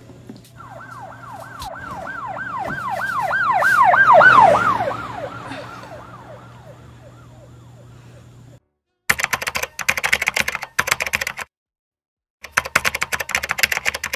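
Siren with fast falling wails, about three a second, swelling to a peak about four seconds in and then fading away. Then rapid keyboard typing clicks in two stretches with a short silent gap between.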